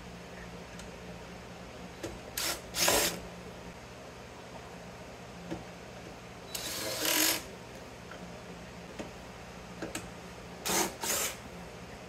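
Cordless drill with a long driver bit spinning in short runs, backing screws out of a variable frequency drive's sheet-metal chassis. Two quick whirs come about two seconds in, a longer run near the middle, and two more quick whirs near the end.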